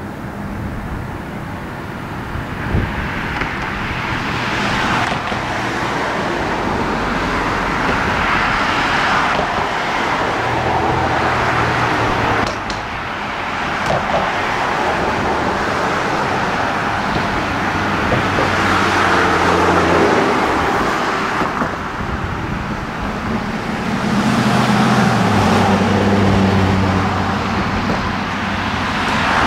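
Vehicles passing close by in waves, a dense rushing noise that swells and fades several times, with a low engine hum in some of the passes.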